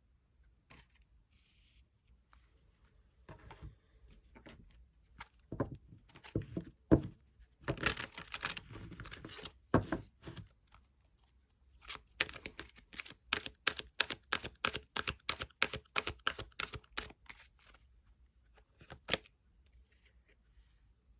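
Tarot cards being handled and shuffled: scattered taps and rustles, then a quick run of clicks lasting about five seconds, and a last couple of taps near the end.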